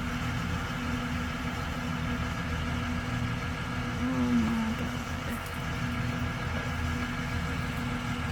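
A motor engine idling steadily with a low, even hum, and a brief wavering sound just after four seconds in.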